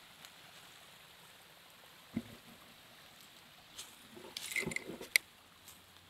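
Faint, steady rush of a small forest stream, with a single knock about two seconds in and a cluster of footsteps crunching on dry leaves between about four and five seconds in, ending in one sharp click.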